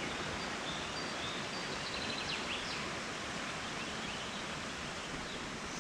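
Steady rush of creek water, with a few faint high bird chirps about two to three seconds in.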